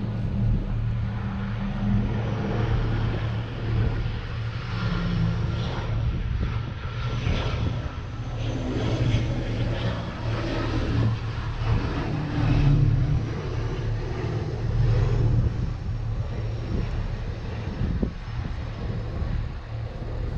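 A sailing catamaran's engines droning steadily as the boat motors along, with wind and water noise over it.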